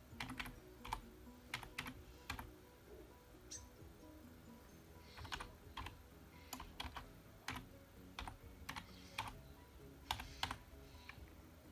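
Typing on a computer keyboard: sharp key clicks in short irregular runs with pauses between them.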